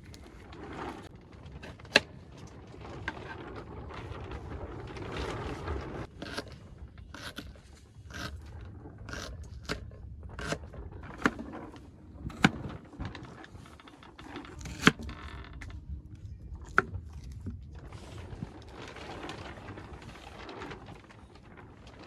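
Scraping and rustling of things being handled, broken by several sharp knocks or clicks.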